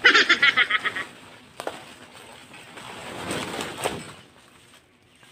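Badyang (giant taro) leaves and stalk rustling and tearing as the plant is pulled down, swelling to a sharp crack near four seconds. This is preceded by about a second of loud, fast pulsing chatter-like sound at the very start.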